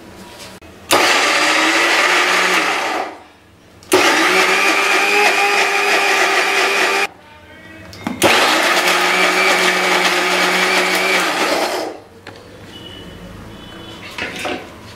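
Electric mixer grinder (mixie) run in three short pulses of about three seconds each, grinding raw ivy gourd, green chillies, garlic and tamarind. The pulsing keeps the chutney coarse rather than smooth.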